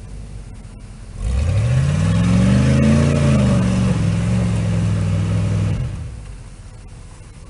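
Jeep J-10 pickup's V8 with open headers revving hard about a second in, climbing in pitch, easing slightly and holding steady for a few seconds, then dropping away near the end.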